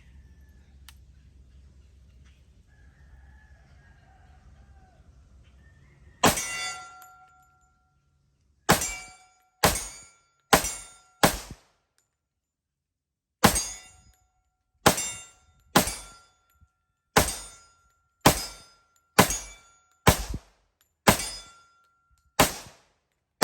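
A string of about fourteen .45 ACP shots from an FNX-45 Tactical pistol, starting about six seconds in, with a pause of about two seconds after the fifth. Each shot is followed by the short ring of a steel target being hit.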